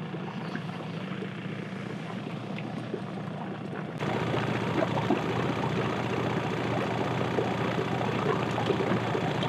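Boat motor running steadily at trolling speed. About four seconds in, the sound cuts abruptly to a louder rushing of water.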